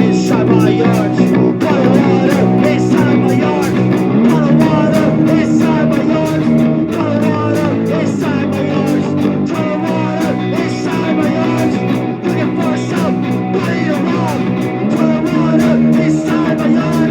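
Punk rock band playing an instrumental stretch: distorted electric guitar, bass and drums, with evenly spaced drum hits throughout.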